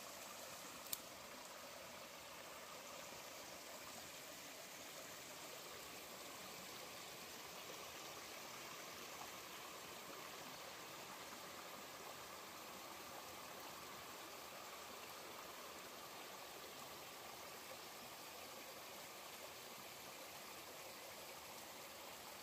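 A small mountain stream running over rocks, a steady, soft rush of water. There is a single short click about a second in.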